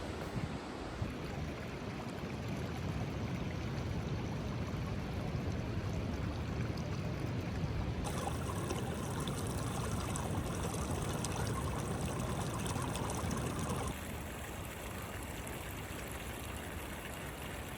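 Steady rush of flowing river water, its sound changing abruptly twice, about eight and fourteen seconds in.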